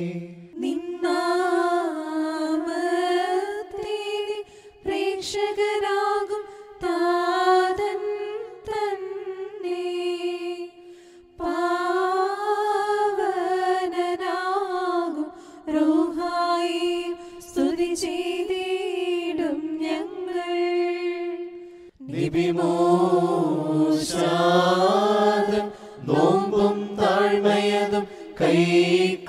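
Syro-Malankara liturgical hymn chanted in Malayalam, sung phrase by phrase with short breaths between. A higher voice sings for about the first three-quarters, then a lower voice takes up the chant.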